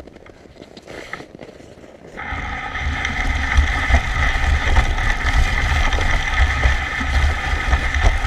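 Wind buffeting a moving microphone, starting abruptly about two seconds in as the pace picks up: a heavy uneven rumble under a steady rushing hiss with a faint whine. Before that, quieter movement with a few faint clicks.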